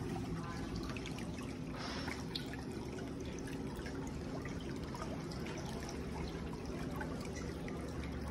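Pedicure spa chair running under test: a steady low motor hum under an even hiss, with no squeak or knocking, the backrest massage mechanism working quietly.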